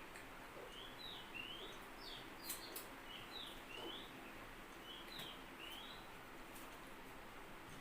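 A bird chirping in the background: short sweeping notes in little groups of two or three, repeated several times. A few sharp clicks, the loudest about two and a half seconds in.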